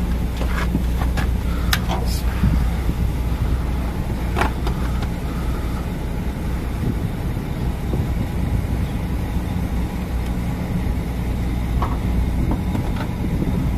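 A truck engine idling steadily, with a few sharp metallic clicks as jumper-cable clamps and battery hardware are handled.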